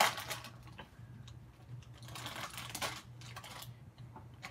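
Faint rustling and scattered light clicks of a small blind-bag toy package being handled and torn open by hand.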